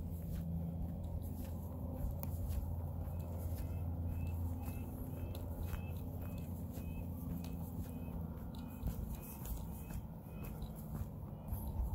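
Footsteps on a hiking trail over a steady low rumble, with a run of short high chirps, about two a second, through the middle.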